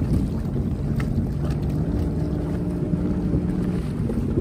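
Wind buffeting the microphone over open water, with a low steady hum from the idling engine of a Sea-Doo jet ski through the middle of it.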